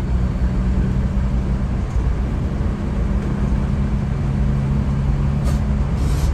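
Scania K360iB coach's diesel engine running steadily under way, a low droning hum over road rumble.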